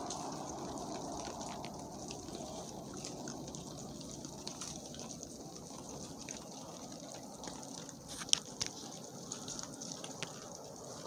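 A group of hogs eating shelled corn: scattered sharp crunches and clicks of kernels being bitten, the loudest cluster about eight seconds in, over a steady low rustling hiss.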